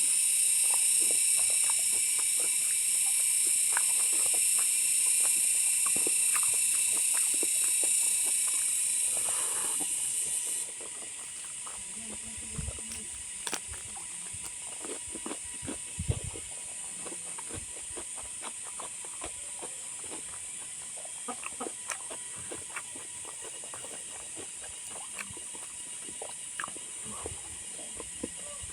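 A steady high hiss cuts off suddenly about ten seconds in. After it, there are quiet scattered clicks and smacks of a person chewing and eating.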